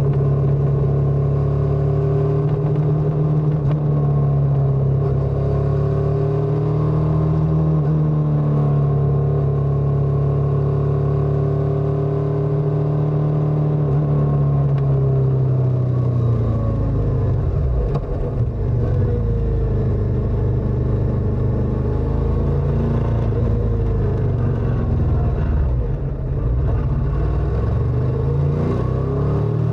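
Motorcycle engine running on the move, holding steady revs for about half the time, then easing off and changing revs, with the pitch climbing again near the end.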